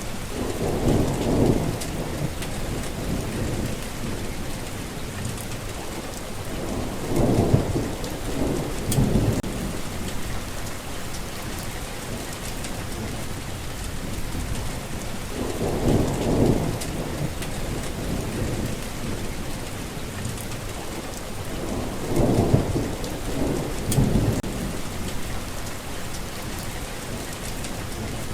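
Steady rain falling, with low rolls of thunder rumbling through it several times, some in close pairs.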